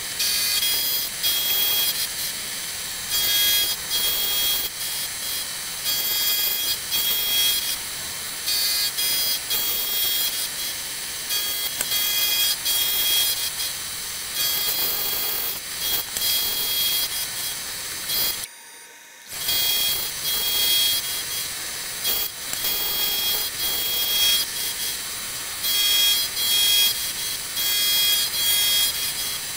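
Milling cutter machining a block of aluminium on a milling machine with a rotary table: a steady high-pitched cutting whine that swells and eases as the cut goes on. It cuts out briefly about two-thirds of the way through.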